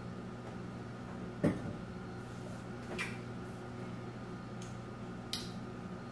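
A glass tasting glass set down on a table with a sharp knock about a second and a half in, followed by two fainter clicks, over a steady low room hum.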